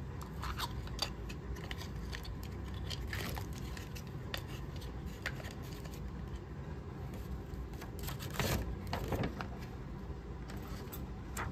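Small handling noises: scattered light clicks and rustles over a steady low background hum, with a louder rustle about eight and a half seconds in.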